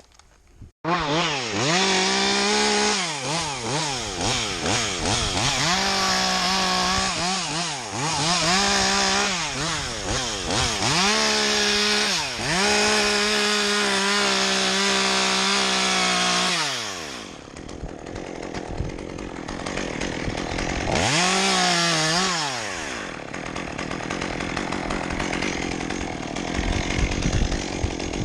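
Chainsaw cutting dead birch, engine at high revs with its pitch sagging each time the chain bites into the wood. About two-thirds of the way through it drops back, revs up once more briefly, then runs at a lower, steady level.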